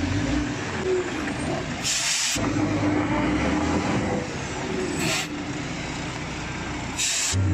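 Heavy FAW J6P dump truck's diesel engine running at low speed as the truck creeps forward, with three short hisses of air from its air brakes about two, five and seven seconds in.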